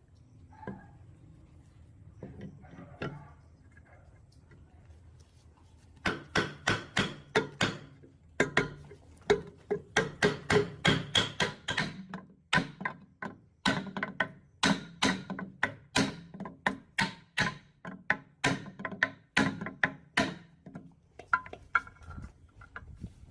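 Hammer striking metal in a fast, steady run of blows, about three a second, each with a short ring. A few light taps come first, and the blows stop near the end.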